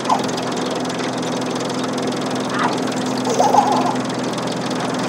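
A steady motor hum runs throughout. A few short, wavering higher sounds come just after the start, about two and a half seconds in, and around three and a half seconds.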